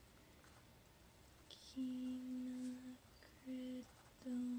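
A woman humming three held notes at one pitch: a long note about two seconds in, then two short ones.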